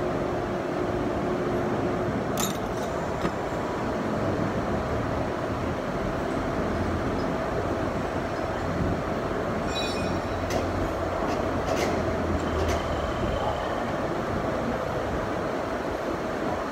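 Workshop din of large engine lathes running: a steady mechanical rumble, with a few sharp clicks about two seconds in and several more around the middle.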